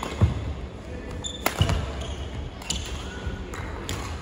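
Badminton rally: two sharp racket strikes on the shuttlecock about a second and a half apart, with players' feet thudding and shoes squeaking on the court floor.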